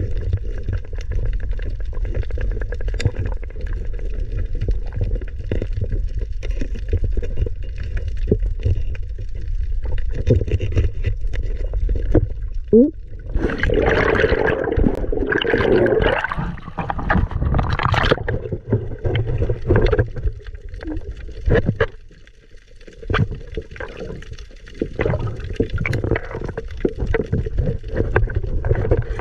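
Underwater sound through a camera housing: a steady low rumble of moving water with scattered clicks and knocks. About halfway through there is a few-second burst of air bubbles close to the microphone.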